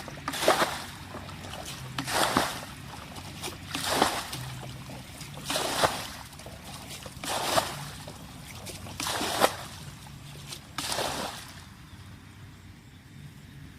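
Water splashing in a regular rhythm, seven splashes about two seconds apart, stopping near the end.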